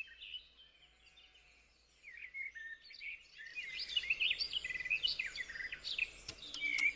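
Faint high-pitched chirping and twittering, many quick rising and falling chirps, starting about two seconds in after near silence.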